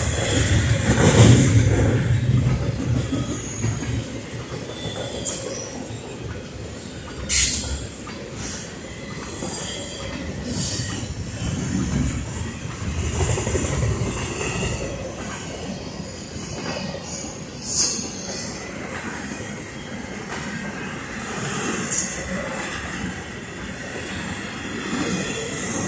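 Double-stack container cars of an intermodal freight train rolling past: a steady rumble and clatter of steel wheels on the rails, with a few brief sharp metallic screeches, loudest about seven and a half and eighteen seconds in.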